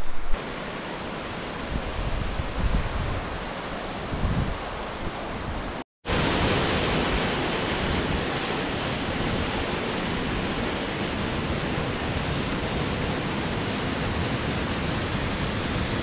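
Rushing water with low gusts of wind buffeting the microphone. About six seconds in, after a brief cut, a steady, even rush of a small waterfall pouring over rock into a pool.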